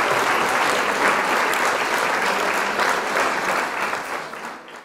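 Crowd applauding, a dense patter of many claps that fades out near the end.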